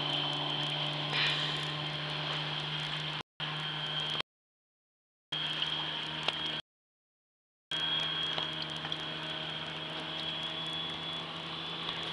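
Antique Chrysler outboard motor running steadily at speed, a constant drone with a high whine over water and wind noise. The sound cuts out completely three times, for up to about a second each, a few seconds in.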